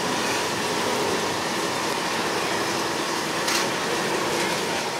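A steady rushing hum of outdoor background noise, with one short sharp tap about three and a half seconds in as a cardboard pizza box lid is shut.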